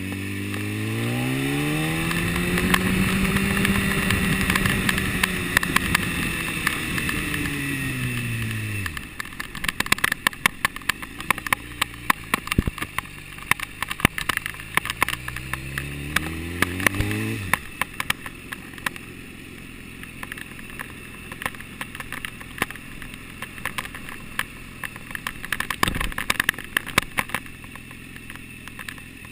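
BMW HP4 superbike's inline-four engine heard from on board: the revs climb as it pulls away, hold, then fall as the throttle is eased; it picks up again and the revs cut off sharply, leaving the engine running low as the bike rolls slowly. Frequent sharp clicks run through the second half, with a single thump near the end.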